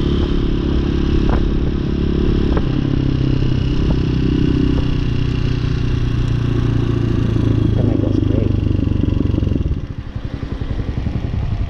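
Hawk 250 dual-sport motorcycle engine running at steady part-throttle while riding, heard from the rider's seat. About ten seconds in the throttle closes and the engine drops to a lower, uneven putter as the bike slows.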